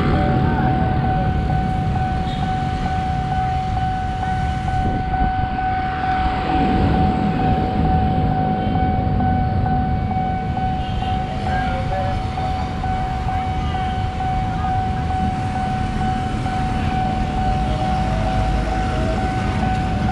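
Railway level-crossing warning alarm sounding a steady, unbroken high tone. Beneath it is the low rumble of motorcycles and road traffic idling at the closed crossing.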